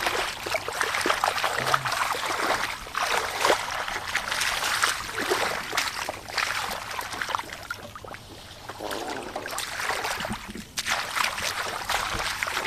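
Hands splashing and sloshing through shallow muddy water and flooded grass while groping for catfish, in repeated surges that ease off briefly about eight seconds in.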